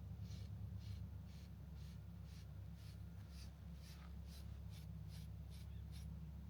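Grooming brush drawn through a shedding dog's coat in quick, even strokes, about two scratchy swipes a second, over a steady low hum.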